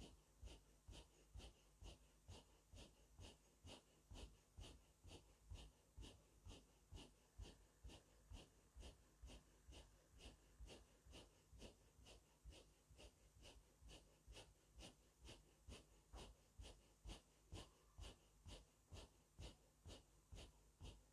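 Quick, forceful breathing through the nose in an even rhythm, a little over two strokes a second, faint: the breath strikes of Naqshbandi Owaisi zikr-e-khafi, with 'Allah' drawn in and 'Hu' struck out on each breath.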